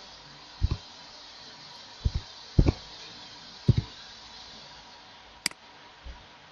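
Four computer-keyboard keystrokes, each a dull doubled tap, spaced unevenly over the first four seconds, then a single sharp mouse click about five and a half seconds in, over a faint steady hiss.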